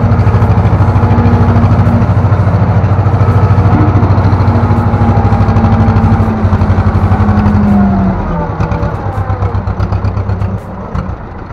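Ursus C-330 tractor's two-cylinder diesel engine running hard under load while pulling a three-furrow plough, heard from inside the cab. After about eight seconds the engine note drops and turns uneven.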